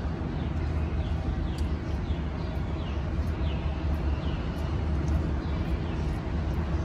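Steady low rumble of background noise, with a bird repeating short falling chirps every half second or so.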